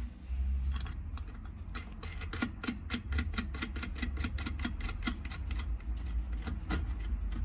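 Light metallic clicking, several clicks a second, as a steel nut is spun by hand down a threaded rod against a bearing-puller sleeve.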